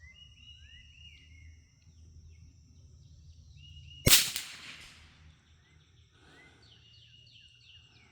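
A single shot from a Brno Model 1 bolt-action .22 LR rifle about four seconds in, a sharp crack with a short echoing tail. Birds chirp in short descending notes around it, over a steady high-pitched drone.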